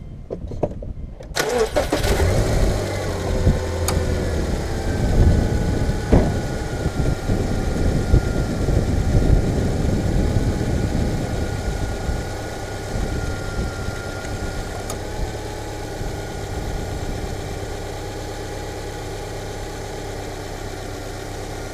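2008 Subaru Outback's horizontally opposed (boxer) engine starting about a second in, on its first start after an oil change, then idling. It runs louder for the first several seconds and settles into a quieter, steady idle.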